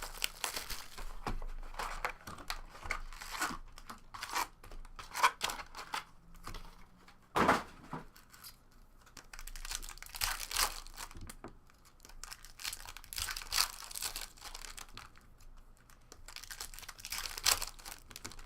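Plastic wrapping being crinkled and torn as a trading-card box and its packs are opened, in irregular rustling bursts with a louder crackle about seven seconds in.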